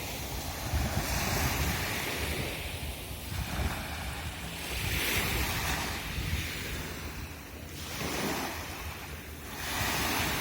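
Sea waves washing onto a beach, surging and easing every couple of seconds, with wind buffeting the microphone.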